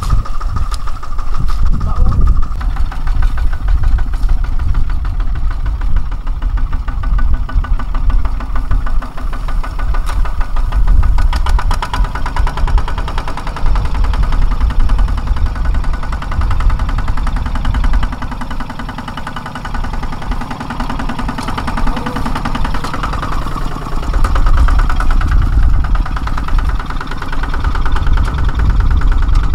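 Kubota ZT140 walk-behind tractor's single-cylinder diesel engine running with a fast, knocking chug as it drives through wet rice stubble and mud. The engine eases off for a few seconds a little past the middle.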